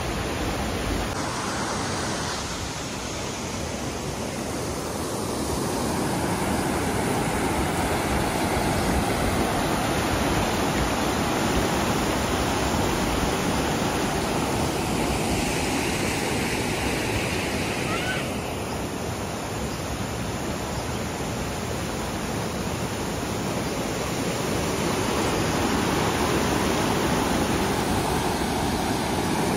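Okere Falls on the Kaituna River: white water rushing over the falls and rapids, a steady loud wash of water noise. It shifts slightly in tone and level a few times.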